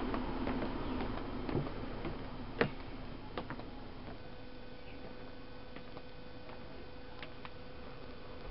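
Footsteps walking down wooden steps and a concrete path, a scatter of sharp, irregular taps over a faint hum; a thin steady tone joins the hum about four seconds in.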